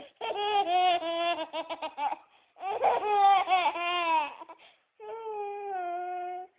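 A toddler laughing in two long bouts of high-pitched giggles, then one long drawn-out vocal note near the end.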